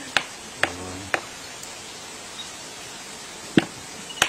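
Capuchin monkey pounding with a hand-held stone on a log: three sharp knocks about half a second apart, a pause of about two seconds, then two more knocks near the end.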